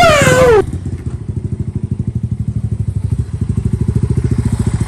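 Single-cylinder motorcycle engine idling with a quick, even pulse. For the first half-second a loud cry falls in pitch over it.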